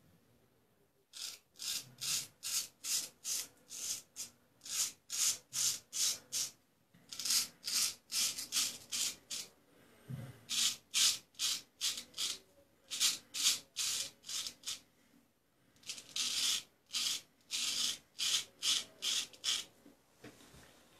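Freshly honed Luigi Rizzo straight razor shaving lathered stubble: a run of short, crisp scraping strokes through the whiskers, about three a second, in several bursts with brief pauses between them.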